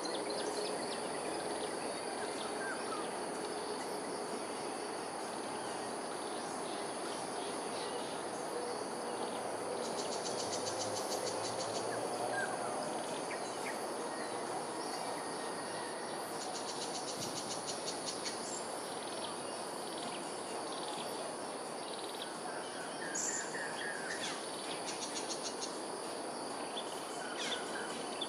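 Morning outdoor ambience: a steady high-pitched insect drone over a continuous background hum. Short rattling trills come twice, and a few brief bird chirps cluster near the end.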